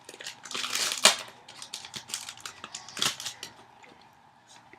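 Foil Yu-Gi-Oh! booster-pack wrapper crinkling and crackling as the freshly torn pack is handled and its cards pulled out, with the loudest bursts about a second in and again near three seconds, growing quieter near the end.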